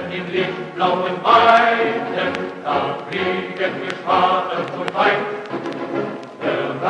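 A choir singing a German march song with orchestral accompaniment.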